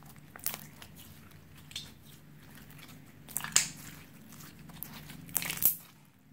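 Slime being squished and mixed, giving irregular sticky clicks and crackles. The loudest come a little past halfway and again near the end.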